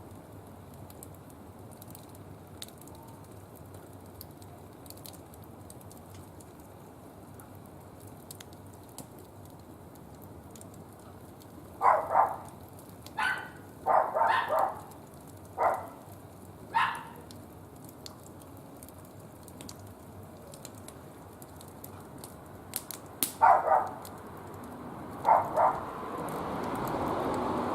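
A dog barking in two bouts, a run of short barks around the middle and a few more near the end, over faint crackling from a wood fire. A swell of rushing noise rises near the end.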